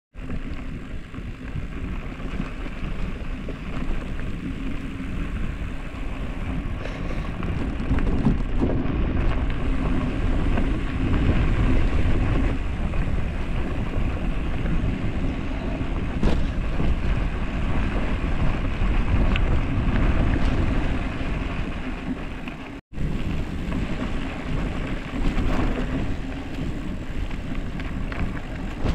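Wind rushing over the microphone and tyres rumbling on a dirt road during a fast gravel-bike descent, with a split-second gap about three-quarters of the way through.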